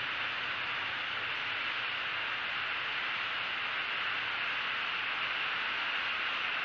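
Steady, even hiss of a live camera's outdoor microphone, with a faint low hum underneath and no distinct calls or events.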